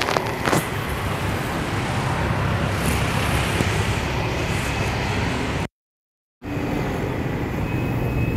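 Steady hum of car engines and street traffic with a low engine drone underneath. It drops out completely for under a second about two-thirds of the way through.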